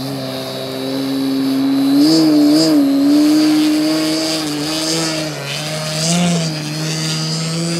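Dualsky GA6000-8 electric outrunner motor spinning the propeller of a 93-inch Extra 330SC RC aerobatic plane hovering nose-up: a steady propeller drone with a high motor whine. The pitch rises and dips with quick throttle changes about two seconds in and again around six seconds.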